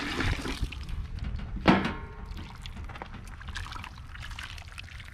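Grease and gravy from the deer hash pot being poured into a bucket, the pour stopping within the first second, followed by a single loud knock a little under two seconds in.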